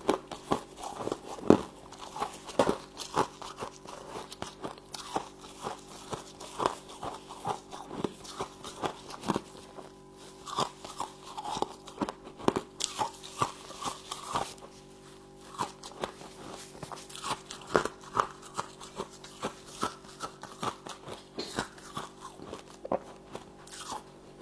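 Frost being bitten and chewed close to the microphone: many sharp, irregular crunches, a few a second, over a steady low hum.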